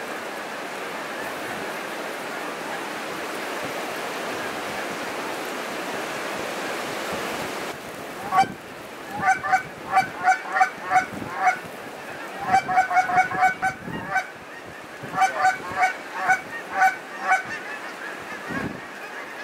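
Huge flock of geese calling overhead as a dense, steady clamour. About eight seconds in, the sound changes to louder, separate honks in quick runs of several calls, with short gaps between the runs.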